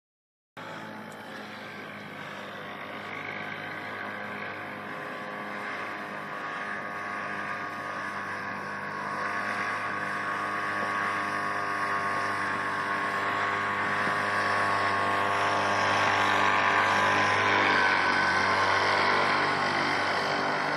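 Paramotor (powered paraglider) engine and propeller running overhead: a steady drone that slowly grows louder as it flies closer, loudest about seventeen seconds in.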